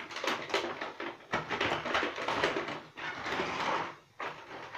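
Plastic toy parts and a cardboard toy box being handled: irregular rustling with sharp clicks and knocks.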